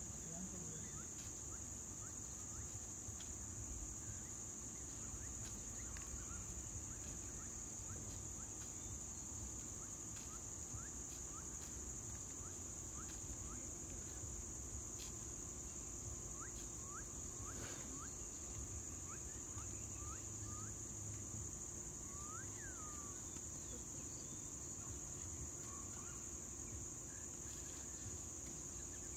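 Steady high-pitched drone of insects, with short rising bird chirps here and there over a low background hiss.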